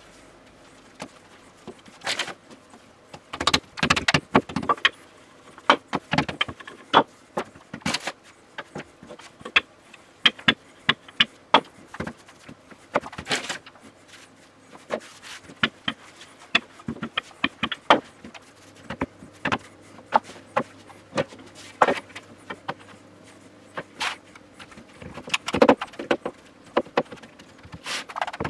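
Shortcrust dough being worked by hand and rolled out with a wooden rolling pin on a worktop: a long run of irregular knocks, taps and clicks, some sharp, with quieter rubbing between them.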